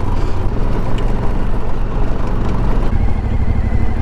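Suzuki V-Strom adventure motorcycle's engine running steadily at low speed over a sandy dirt track. About three seconds in, the engine note grows stronger.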